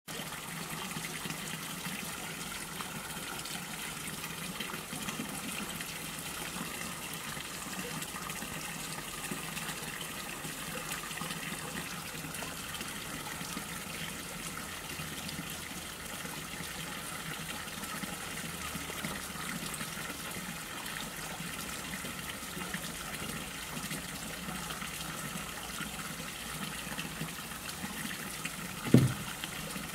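Steady rushing background noise, like running water, with one short low thump about a second before the end.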